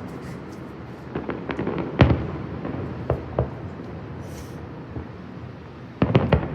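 Fireworks bursting: scattered sharp bangs, the loudest about two seconds in, a few smaller pops after it, and a quick cluster of bangs near the end, over a continuous low rumble.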